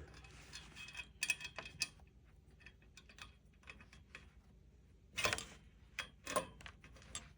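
Scattered light clicks and taps of small metal hardware being handled: a screw and washer being fitted through the end of a raised planter's metal bar. There is a cluster of clicks about a second in and two louder knocks near the end.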